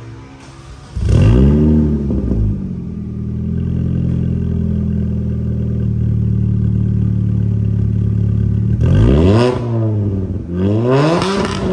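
Mini Cooper exhaust with a dual catback and Muffkidz muffler. The engine flares up sharply about a second in, settles to a steady idle, and is blipped twice near the end, each rev rising quickly and falling back.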